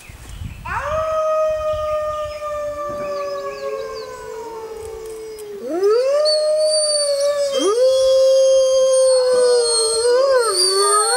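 Arctic wolves howling in chorus: long, gently falling howls from more than one wolf overlap at different pitches. The howling grows louder about six seconds in, and near the end the pitch wavers up and down.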